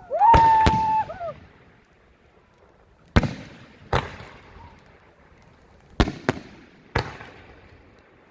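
Aerial firework shells bursting directly overhead: seven sharp booms, each trailing off in an echoing rumble, coming singly or in quick pairs. A long held shout rides over the first two booms.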